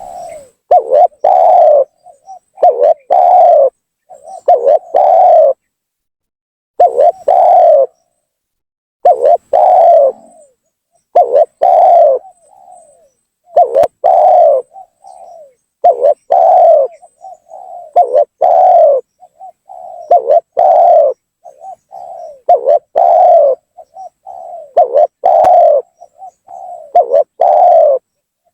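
Spotted dove cooing over and over in short phrases of low coos, one phrase about every two seconds. This is the vigorous lure call used to draw wild spotted doves in.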